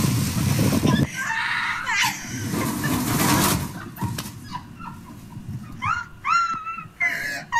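A water splash as someone drops off a boat slide into a lake, cut off suddenly about a second in. Near the end comes a run of short, high-pitched yelps, each rising and falling.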